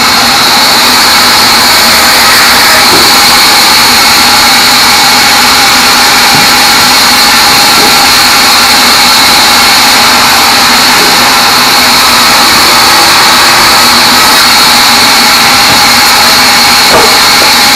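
Band sawmill running steadily while sawing teak, a loud continuous machine noise with a steady high whine.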